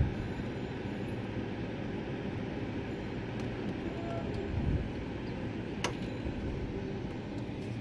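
Steady low rumbling handling noise as a hand feeds a USB cable into a port on the back of a desktop PC. There are dull bumps at the start and nearly five seconds in, and a single sharp click about six seconds in as the plug goes in.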